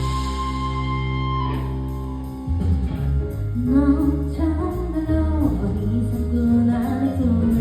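Live band music: a held guitar chord rings and fades over the first two seconds. Then the bass and beat come back in, and a singer's voice carries a melody over them.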